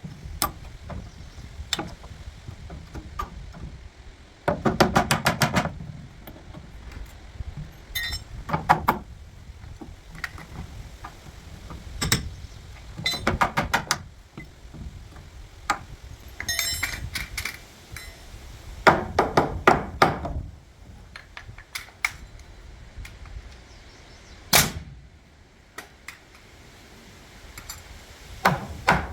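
Demolition work: bursts of rapid hammer blows and knocks on wood, several strikes at a time, with short pauses between the bursts.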